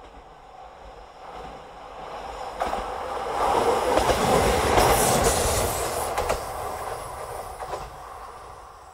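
A single-car JNR KiHa 40 diesel railcar running past, its sound building to a peak about four to five seconds in and fading away. A few sharp clacks of its wheels over rail joints stand out as it goes by.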